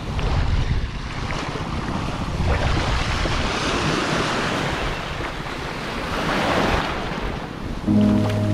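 Small waves breaking and washing over a shallow reef flat, with wind buffeting the microphone; about eight seconds in, background music with steady sustained notes comes in.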